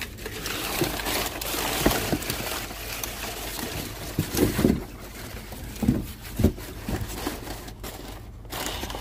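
Crumpled brown kraft packing paper crinkling and cardboard boxes shifting as a gloved hand rummages through them. The rustling is fullest in the first few seconds, followed by several dull knocks of the boxes.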